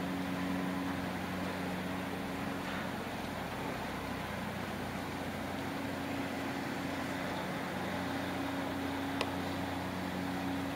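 Steady low drone of the Ocean Arrow high-speed car ferry's machinery, heard inside its passenger cabin, with a couple of held hum tones. A single short click about nine seconds in.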